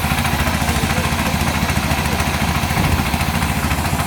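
Orchard speed sprayer running during a spraying demonstration: its engine drones steadily under the continuous rushing hiss of the blower fan and spray mist.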